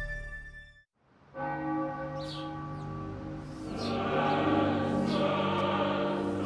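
Title theme music fading out, then after a moment of silence church bells ringing, their long tones hanging and overlapping, with fresh strikes every second or so.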